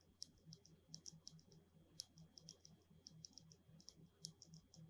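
A modified Outemu Blue optical key switch, its click contacts removed so it works as a linear switch, pressed again and again with no keycap: a quick run of faint, light clicks, several a second.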